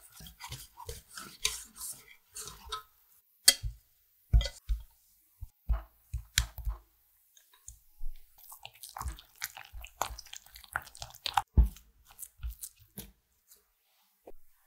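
A wire whisk clicking and scraping in a stainless steel pot as flour is mixed into a cocoa paste. Then thick chocolate batter with egg yolks is stirred in a glass bowl, with irregular wet, sticky squishes and a few sharp knocks against the bowl.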